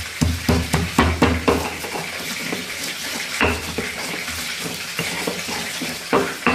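Stone pestle grinding and crushing raw garlic, chilies and salt in a stone mortar (Indonesian cobek and ulekan). There is a quick run of gritty scraping strokes in the first second and a half and more again near the end, with a steady hiss in between.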